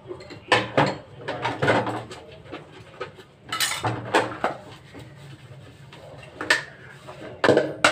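Dishes and cutlery being washed by hand in a sink: irregular clinks and clatters of plates and utensils knocking together, a few seconds apart.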